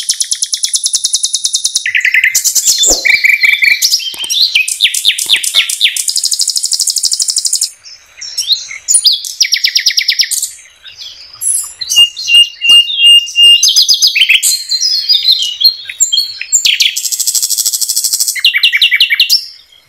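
Common nightingale singing loud, fast runs of rapidly repeated notes and rattles, with a clear repeated whistle about two-thirds through and short pauses between phrases.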